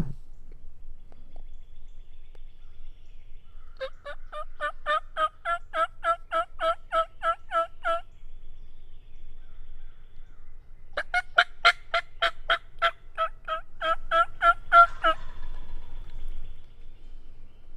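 Turkey yelping: two long runs of evenly spaced notes, about four or five a second, each run lasting about four seconds, with a pause of a few seconds between them.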